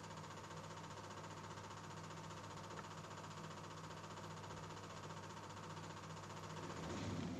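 A faint steady low hum over even hiss, growing louder near the end.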